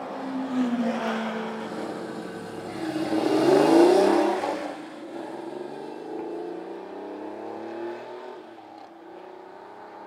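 Porsche 964 RS America's air-cooled 3.6-litre flat-six with a Cup pipe exhaust, accelerating hard as the car pulls away, loudest about four seconds in. The revs then rise again twice through upshifts as the note fades into the distance.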